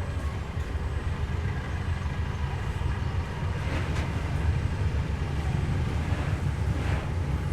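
Diesel-hauled passenger train running along the line, a steady low rumble that grows slightly louder toward the end.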